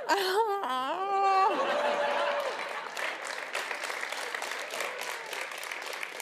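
Studio audience clapping and cheering, the claps slowly dying down. It opens with a drawn-out high vocal exclamation whose pitch wavers, lasting about a second and a half.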